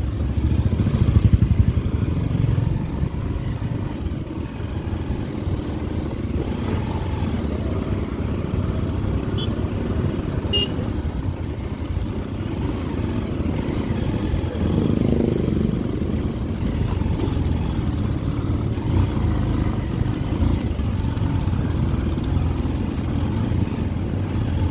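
Motorcycle engines running steadily under way on a dirt track, heard from one of the moving bikes, a little louder in the first two seconds.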